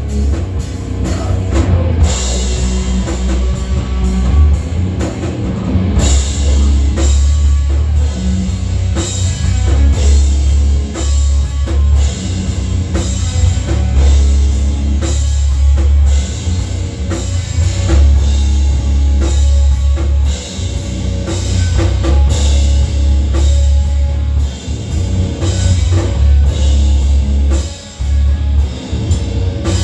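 Live rock band playing loud: electric guitars and a drum kit with a heavy low end and steady drum hits, with a brief drop in the playing near the end.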